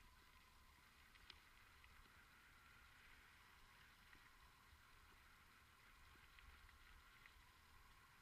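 Near silence: a faint steady hiss and low rumble with a few faint clicks, one a little louder about a second in.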